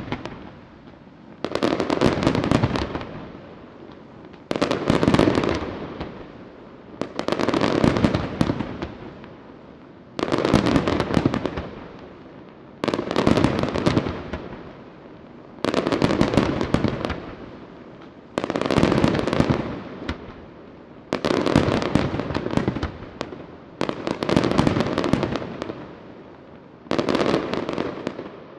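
Aerial fireworks display: volleys of shells bursting in dense clusters of bangs and crackles, about every three seconds, ten times over, each fading out before the next.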